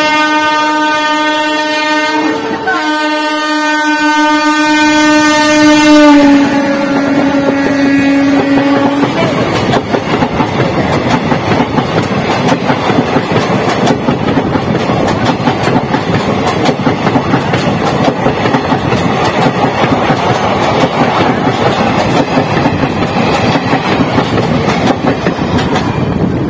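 WAG9 HC electric locomotive blowing a long continuous horn blast that drops in pitch as it passes, at about six seconds. Then the Parcel Express coaches rush past at speed, with a loud, dense rattle of wheels on rail for the rest of the time.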